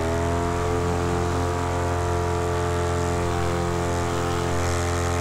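Macfly paramotor engine and propeller running at a steady throttle, a constant droning hum holding one pitch.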